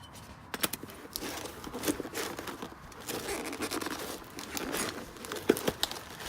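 Irregular rustling, scraping and light clicks of hands handling new brake pads and their fittings at the caliper.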